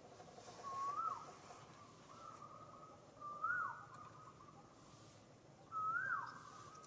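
An animal's whistled call, repeated three times about every two and a half seconds, each note rising and then dropping off sharply, over a faint steady whistle-like tone.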